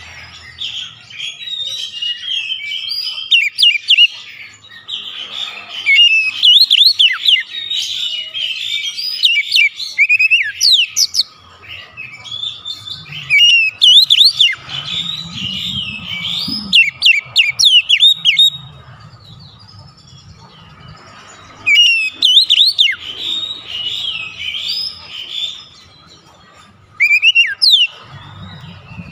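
Male oriental magpie-robin singing: runs of quick, varied whistles and sweeping notes in several long phrases, broken by short pauses of a second or two.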